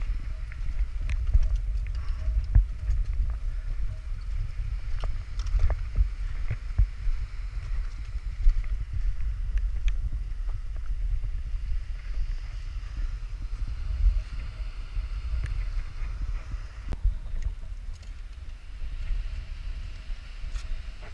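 Wind buffeting the camera's microphone, a heavy, gusting low rumble, with scattered light clicks and knocks from footsteps and carried diving gear.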